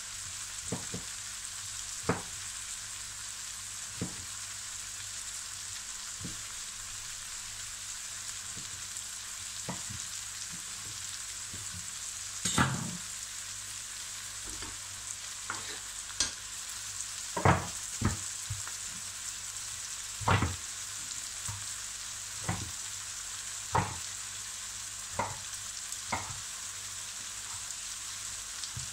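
Chopped tomatoes, peppers, zucchini and onion frying in olive oil in a large non-stick pan, a steady sizzle throughout. Sharp knocks come every second or two, with a longer clatter about a third of the way in.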